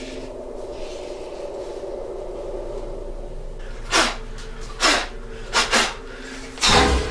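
Boxing gloves landing punches: about five sharp hits in the second half, the last one the heaviest thud. Before the hits there is only a steady low hum.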